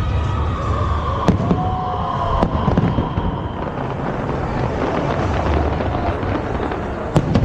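Aerial fireworks going off: dense crackling over a low rumble, with sharp bangs about a second in, around two and a half seconds, and near the end, and whistling glides sounding in the first few seconds.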